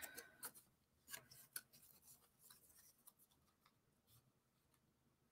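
Faint scattered clicks and light scraping of thin plywood puzzle pieces being handled and pushed into their slots, thinning out toward the end.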